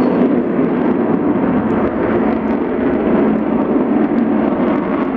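Avro Vulcan bomber's four Rolls-Royce Olympus turbojets in flight, a loud, steady jet noise with no clear change in pitch.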